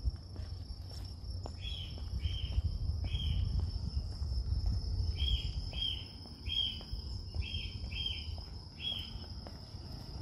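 Outdoor insect chorus: a steady, high-pitched insect drone with short chirps repeated in two runs, roughly one every two-thirds of a second, over a low rumble.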